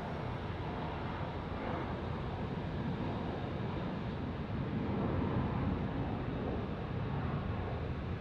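Jet airliner engines heard at a distance, a steady low rumble that swells a little about five seconds in.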